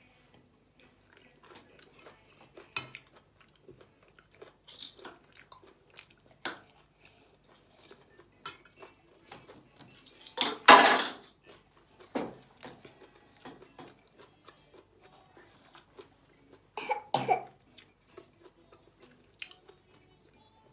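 Close eating sounds: chewing and small clicks of clam shells and a spoon, with loud coughing about ten seconds in and again near the end.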